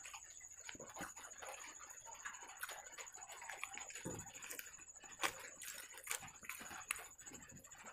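Close-miked eating sounds: wet chewing and sharp mouth clicks as a mouthful of puffed fried bread is chewed, with soft tearing of the bread by hand. Scattered clicks, the loudest about halfway through, over a faint steady high-pitched whine.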